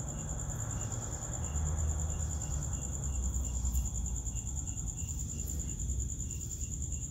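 Crickets chirping steadily: one high, even trill with a faint pulse about three times a second beneath it, over a low rumble.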